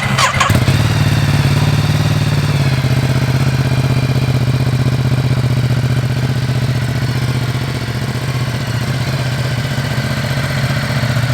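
Ducati Multistrada 1260's V-twin engine idling steadily, a low, even beat.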